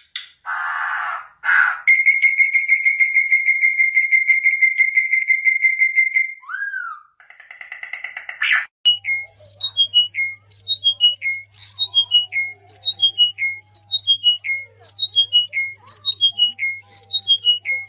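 Bird calls from a series of short recordings. First a few short harsh calls, then a long steady whistled trill for about four seconds. From about halfway, a bird repeats a short phrase of stepwise falling notes about once a second, over a faint low hum.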